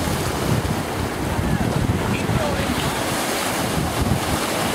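Wind buffeting the microphone over a steady wash of ocean surf.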